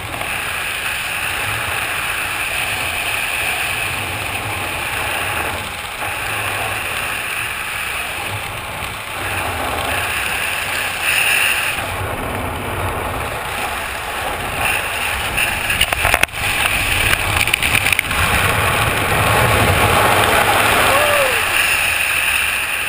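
Wind rushing and buffeting over a helmet-mounted camera microphone during canopy flight under a skydiving parachute, gusting and crackling in the middle and growing louder near the end as the canopy picks up speed.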